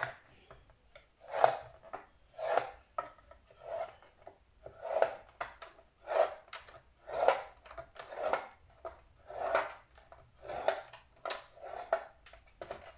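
Scoring stylus drawn down the grooves of a scoring board, scoring a sheet of paper: a short scraping stroke about once a second, about a dozen in all.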